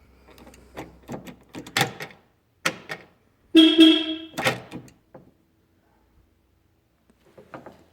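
A few clicks and knocks, then about halfway through the Porsche Boxster's horn gives a short alarm chirp in two quick pulses: the double beep that signals a fault in the alarm system, here from a plug left unconnected.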